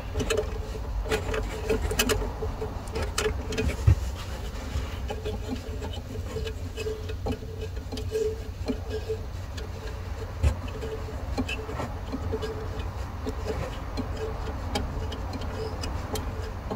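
Hand tools clicking and tapping on metal while the 12V battery's fittings are loosened and removed, with a quieter ticking that repeats throughout, over a steady low rumble.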